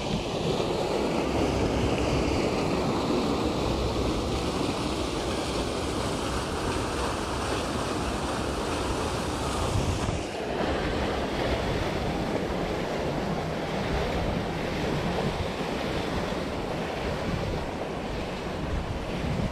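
Steady rushing and splashing of water from an artificial rock waterfall falling into a pool, with wind buffeting the microphone.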